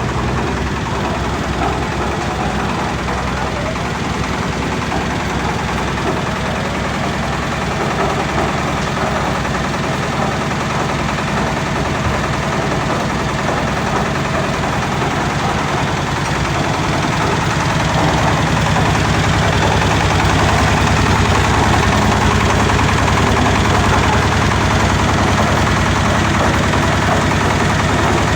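Heavy vehicle engine running steadily, growing louder and deeper about two-thirds of the way through.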